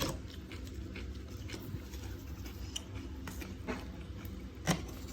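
Scattered light clicks and taps over a low steady hum, with one sharper knock near the end.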